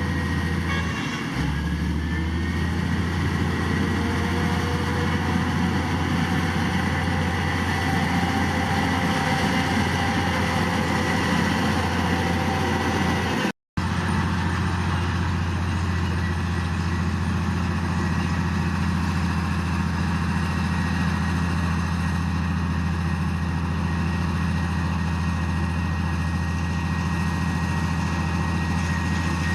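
Heavy diesel engine of earthmoving machinery running steadily under load, with a thin whine above the engine drone. The sound cuts out completely for a moment about thirteen seconds in, then resumes the same.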